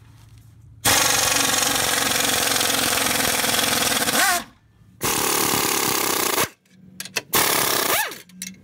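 Pneumatic impact wrench hammering as it loosens the leaf-spring U-bolt nuts on a rear axle. It runs in a long burst of about three and a half seconds, then a shorter burst of about a second and a half, then a few quick blips near the end.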